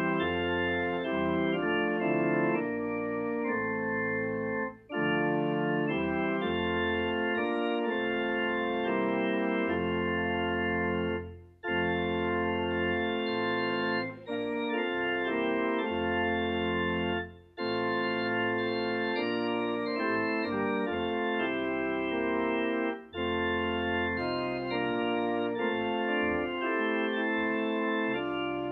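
Organ playing a hymn in sustained chords, phrase by phrase, with a brief break between phrases every few seconds.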